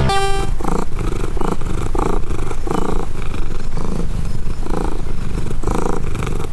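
Domestic cat purring loudly and close up, in an even rhythm of pulses.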